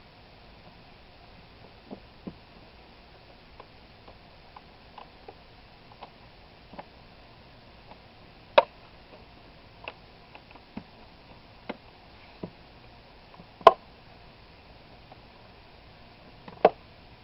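Scattered light clicks and knocks of tools and parts being handled during reassembly, with three sharper knocks in the second half.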